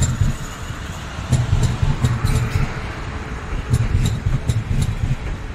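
South Western Railway Class 450 Desiro electric multiple unit passing close by: a steady low rumble with repeated sharp clicks from its wheels over the rail joints, about three a second in the second half.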